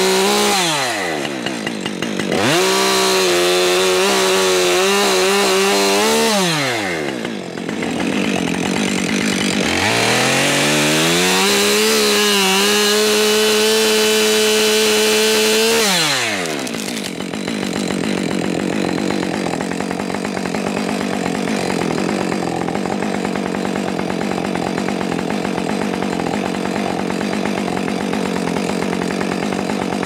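Two-stroke chainsaw cutting through a small conifer trunk. It revs up and holds high speed, dropping back about seven seconds in and again about sixteen seconds in. After that comes a steady rushing noise with no clear pitch.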